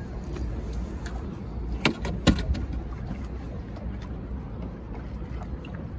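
Steady low rumble of wind and river water around a small fishing boat, with a few sharp knocks and clicks about two seconds in.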